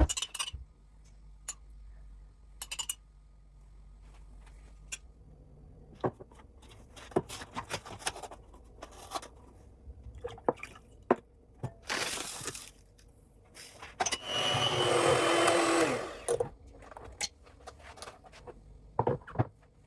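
Scattered clicks and knocks of kitchen work, with a short hiss about twelve seconds in and a louder two-second burst of noise about fourteen seconds in.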